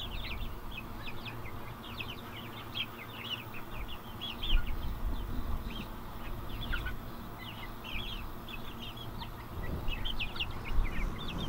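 Chickens in a coop chirping, many short high notes throughout. A low rumble comes in on the microphone about four seconds in.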